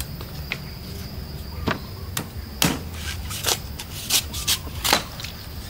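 Cleaver chopping into a young green coconut on a wooden block, shaving off the soft husk in about nine sharp, irregularly spaced chops.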